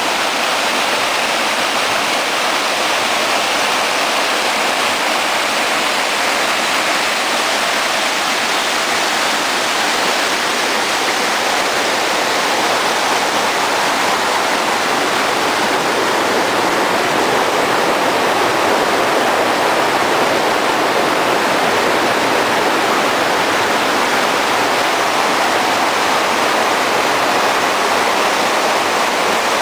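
Mountain river rushing and splashing over boulders in small rapids, a steady loud churning of white water.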